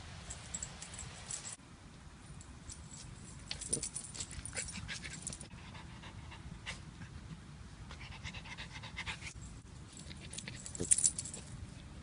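Small Bolonka Zwetna dog panting, with bursts of crackly rustling from feet moving through forest-floor litter; the loudest burst comes near the end.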